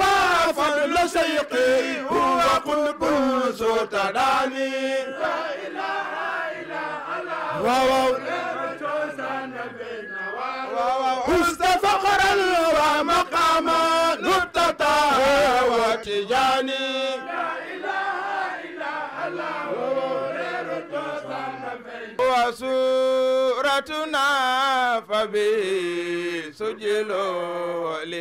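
Religious chanting: a lead voice sings long, wavering, ornamented phrases with brief pauses between them.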